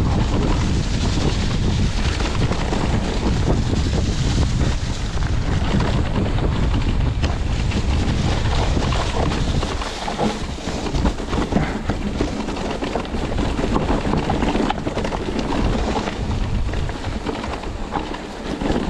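Wind buffeting the microphone while an electric mountain bike runs down a dirt trail, its tyres rolling over earth, leaf litter and stones with a constant clatter of small knocks. The low wind rumble eases about ten seconds in, leaving the rattling and tyre noise more to the front.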